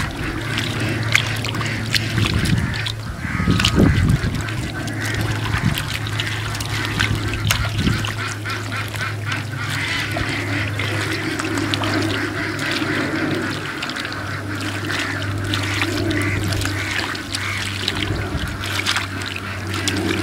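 Ducks quacking now and then over the wet squelches and splashes of hands digging into pond mud, with a steady low hum underneath.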